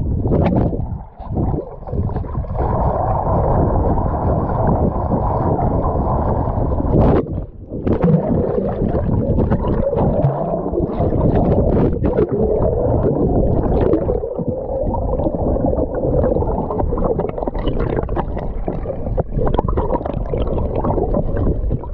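Muffled rushing and bubbling of lake water heard through a camera held underwater, with a swimmer moving close by.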